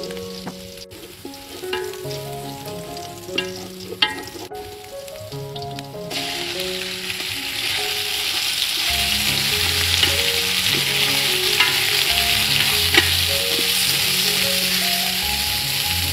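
Minced garlic frying quietly in hot oil in an aluminium pot, with a few knocks of a wooden spatula; about six seconds in, sliced raw meat goes into the oil and a loud, steady sizzle takes over as it is stir-fried. Background music plays underneath.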